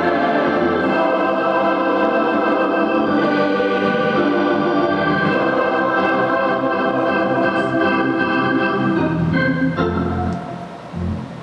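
Organ playing held chords that change every few seconds, dropping away shortly before the end.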